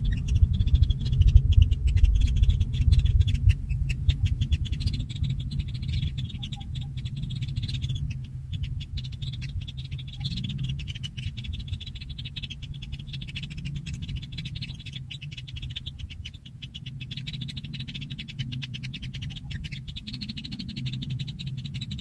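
Rapid, pulsed animal calling that runs on without a break, over a steady low rumble that is loudest in the first few seconds.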